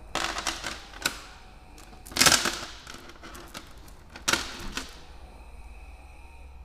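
Loose metal engine parts clattering as they are handled, in three short bursts with a sharp click between the first two, the middle burst loudest.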